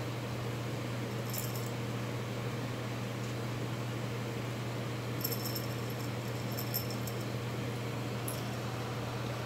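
Small jingle bell in a cat toy tinkling in short clusters as a kitten bats at it: once about a second and a half in, a longer run in the middle, and once more near the end, over a steady low hum.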